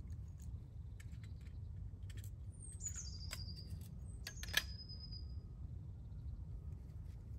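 A small bird's high calls, the first gliding down in pitch about three seconds in, over a steady low background rumble. Light clicks of handling come and go, with one sharp click, the loudest sound, about halfway through.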